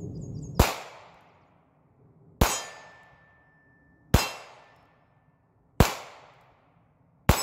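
Five shots from a North American Arms Pug .22 Magnum mini revolver, fired at an even pace about a second and a half apart, each a sharp crack with a short echoing tail. A steel target rings with a thin steady tone after the second shot.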